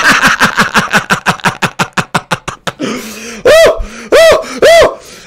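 A man laughing in a fast run of short 'ha' sounds, then three loud rising-and-falling whoops of celebration.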